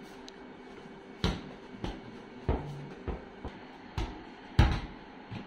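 A ball being bounced, about seven irregular thumps roughly half a second to a second apart, the loudest near the end.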